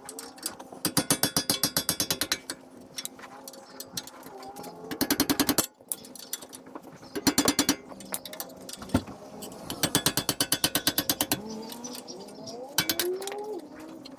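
Half-inch impact wrench hammering in four short bursts of rapid blows, breaking loose the two bolts that mount a brake caliper.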